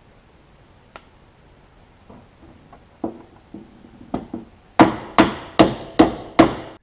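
Hammer blows on the steel rear fender of a 1946 Chevy, panel-beating a dent back toward its original shape. A few light taps build to five hard, ringing metallic blows, about two or three a second, near the end.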